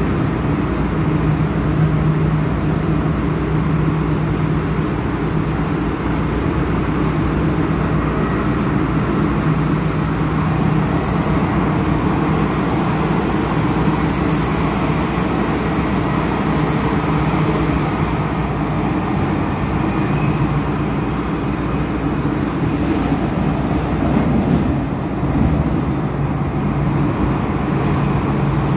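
Interior running noise of an MTR M-Train metro car in motion, heard from inside the carriage: a steady rumble of wheels on the rails with a steady low hum.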